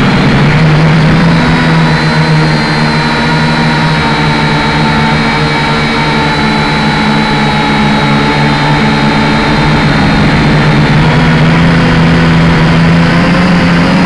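A small drone's electric motors and propellers, heard from its onboard camera, make a loud, steady buzzing whine in flight. The pitch dips a little in the middle.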